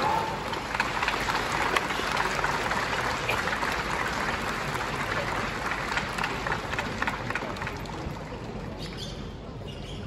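Large crowd applauding, a dense patter of clapping that gradually dies away over the last couple of seconds.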